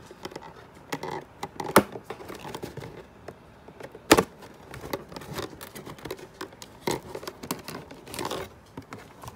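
A cardboard toy box and its clear plastic packaging being handled: irregular crinkling and rustling with scattered clicks, and two sharp knocks about two and four seconds in.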